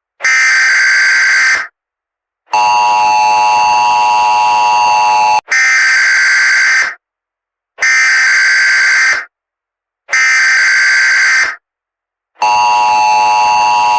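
Emergency Alert System tones: short data bursts of about a second and a half, four in all, and two longer steady two-tone attention signals of about three seconds, each separated by a brief silence.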